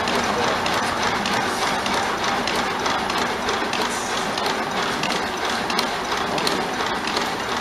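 Vertical single-cylinder hit-and-miss gasoline engine running unloaded, its flywheels coasting with a steady mechanical clatter and clicking, firing only now and then to hold its governed speed.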